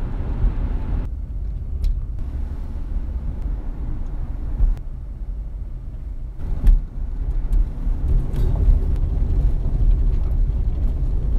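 Car driving, a steady low road-and-engine rumble heard from inside the cabin, with a few light knocks.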